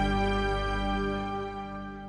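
Music: a single held chord with many steady tones, fading out.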